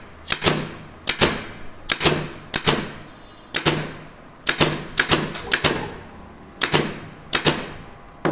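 Pneumatic nailer firing nails one after another, about a dozen sharp shots at irregular spacing, some in quick pairs, each with a short fading tail.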